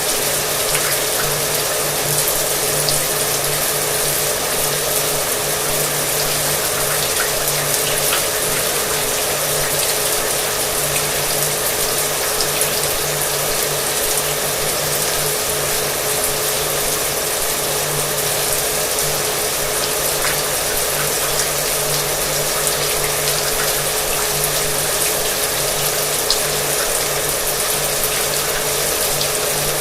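Shower water running steadily, with a hair dryer's constant motor whine beneath it.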